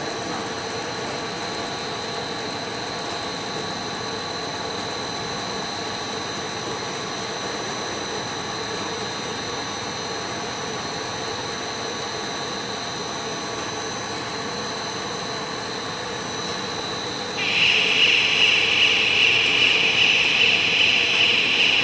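FTPEG-1000 compound bubble film machine running steadily: a machinery hum with several steady whining tones. About 17 seconds in, a much louder high-pitched hiss starts suddenly and keeps going over the hum.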